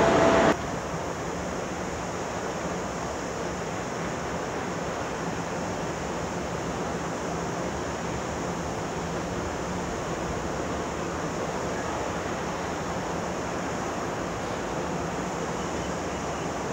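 Loud jet-airliner engine noise with a steady whine cuts off abruptly about half a second in. A steady outdoor rushing noise with a faint low hum follows, unchanging to the end.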